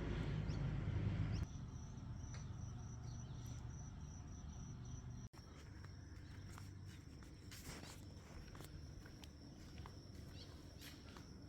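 Faint outdoor ambience with a steady high-pitched insect drone and scattered light clicks. A low rumble stops abruptly about a second and a half in.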